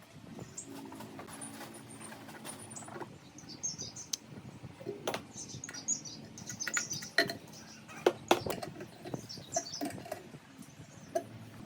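Scattered sharp clicks and knocks of hand work, with small birds chirping in the background.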